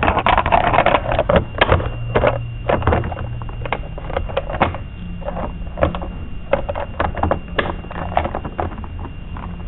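A plastic bento-box enclosure being closed up and handled: irregular clicks, knocks and light clatter of the lid and case, over a steady low electrical hum.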